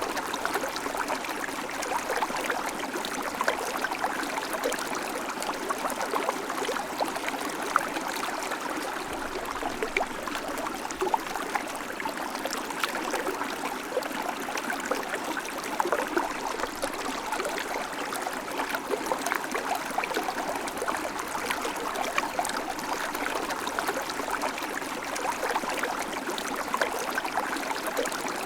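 River water flowing and babbling over rocks: a steady rushing with many small splashes and gurgles.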